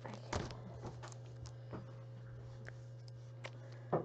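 Scattered short crinkles and taps from a Pokémon booster pack's foil wrapper and cards being handled, over a steady low hum.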